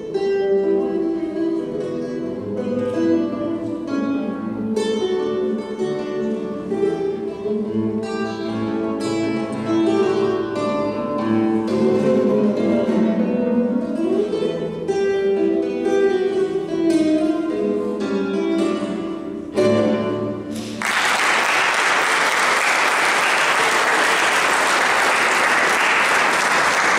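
Solo classical guitar playing plucked notes, closing with a final struck chord about twenty seconds in, followed by audience applause.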